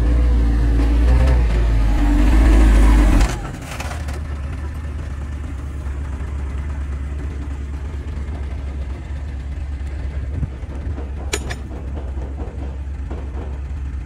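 Heavy diesel vehicle engine revving hard under load, its pitch wavering, then a sudden drop about three seconds in to a steady, lower engine drone. A short sharp click sounds about eleven seconds in.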